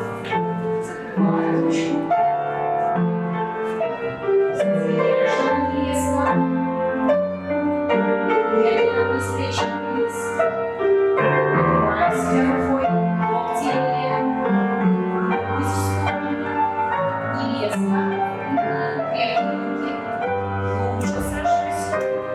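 Piano playing a folk-dance tune with a steady beat, with a few short sharp taps now and then.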